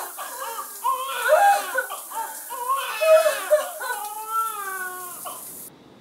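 Newborn baby crying in a run of short, wavering wails, the last one longer and falling in pitch; the sound cuts off abruptly near the end.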